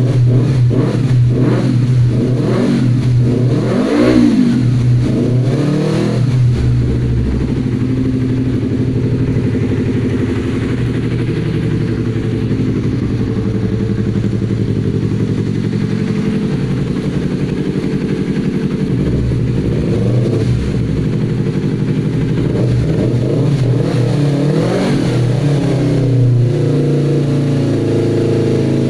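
Yamaha R25 parallel-twin engine through an Akrapovic exhaust, blipped several times in quick succession, then settling to a steady idle, with more single throttle blips later and a final rev near the end. The exhaust note is deep and bassy.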